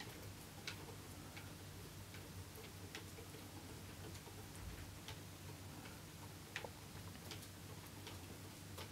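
Cat exercise wheel turning under a walking snow Bengal cat, giving faint light ticks about every three-quarters of a second over a low steady hum.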